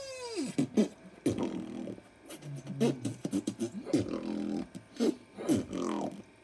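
Beatboxing-style mouth noises made by a teenage boy: sharp clicks and pops mixed with short vocal sounds that slide up and down in pitch.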